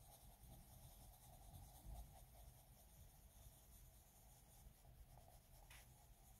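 Faint, soft scratching of a Derwent Coloursoft colored pencil shading on paper, layering brown into skin tones.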